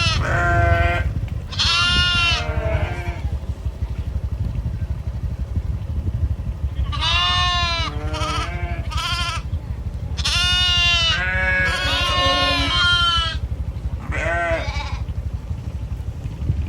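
Several sheep-like farm animals bleating in wavering, overlapping calls at different pitches. A few calls come at the start, then a gap of about four seconds, then a longer run of calls. A steady low rumble lies underneath.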